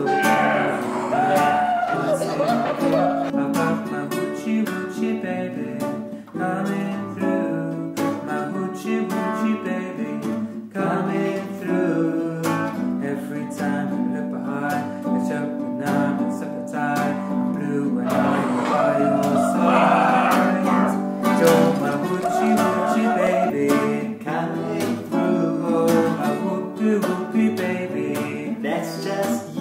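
Acoustic guitar played in plucked notes, with a voice singing over it near the start and again about two-thirds of the way through.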